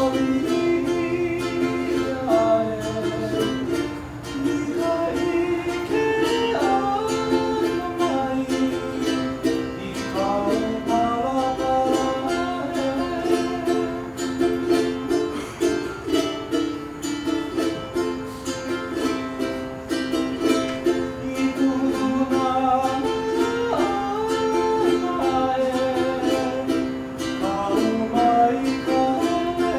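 A man singing a Hawaiian-language mele, accompanying himself by strumming a ukulele.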